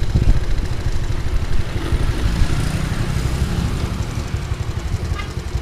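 Honda C70 motorcycle with a swapped-in Honda Grand single-cylinder four-stroke engine running on the road, a steady low pulsing that slowly gets quieter.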